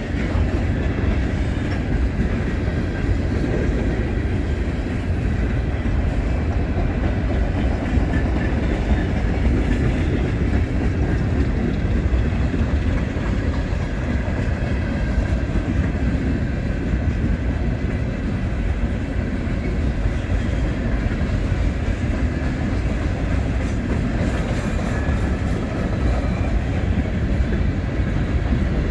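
Norfolk Southern freight train rolling past, a steady rumble of cars on the rails.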